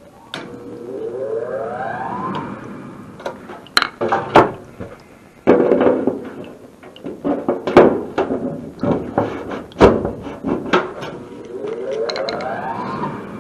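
A small motor whining up in pitch for about two seconds near the start, and again near the end, with a run of sharp knocks and clattering clicks in between.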